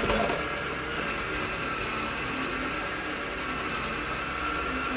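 An electric motor running steadily with an even whine, as from a small appliance.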